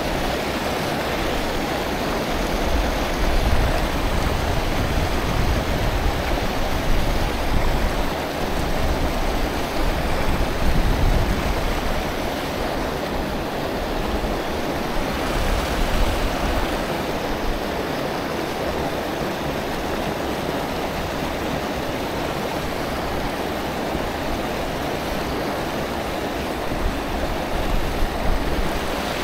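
Steady rush of flowing stream water, with intermittent low rumbling in the first half and again near the end.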